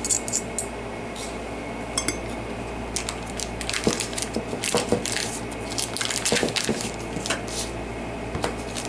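A utensil scraping and clicking irregularly against a dish as cooked spaghetti squash is scooped and mixed.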